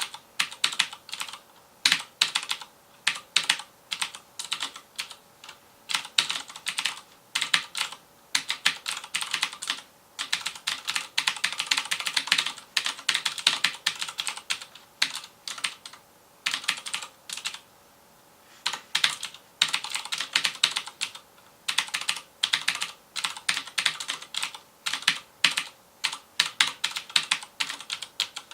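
Fast typing on a FILCO Majestouch Convertible 2 mechanical keyboard with Cherry MX Blue switches: quick runs of crisp clicky keystrokes broken by short pauses.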